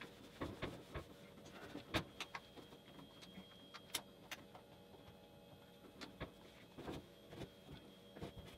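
Damp cloth rag wiping the painted metal control panel of a kitchen range with warm soapy water: faint rubbing with scattered light knocks and clicks, the sharpest about two seconds in.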